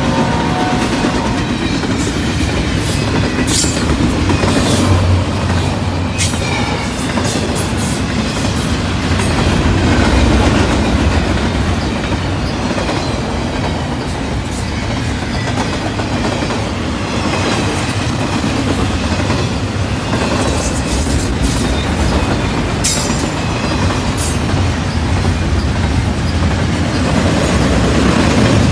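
Double-stack intermodal container train rolling past at close range: a steady rumble of steel wheels on the rails, with scattered sharp clicks and clacks from the wheels over the track.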